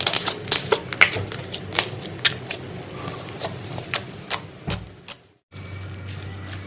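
Rapid, irregular sharp clicks and taps for about five seconds. The sound then cuts out briefly and gives way to a steady low hum.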